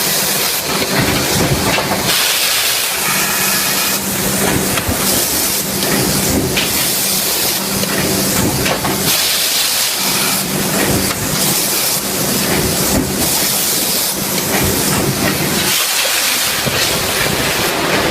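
Forge shop machinery running: a loud steady hiss over a constant low hum, with frequent irregular knocks and clanks.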